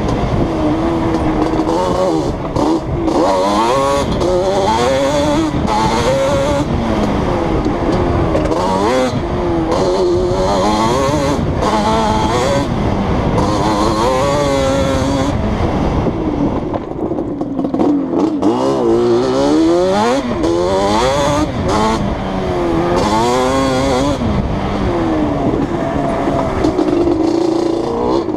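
Yamaha Banshee's 350 cc twin-cylinder two-stroke engine breathing through replica Toomey T5 drag pipes, under hard riding with the revs climbing and dropping again and again as the throttle is worked and gears change.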